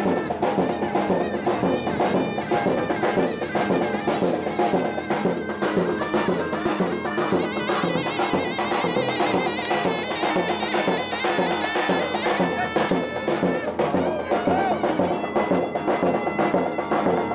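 Traditional folk music played without a break: a shrill reed wind instrument carries the melody over drumming.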